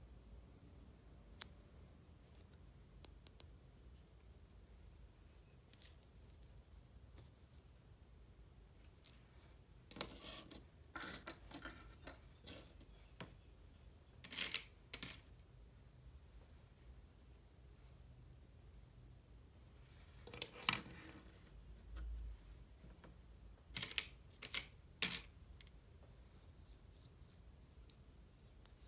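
Faint handling of packaging during an unboxing: scattered sharp clicks, then several short, scratchy crinkling bursts separated by quiet pauses.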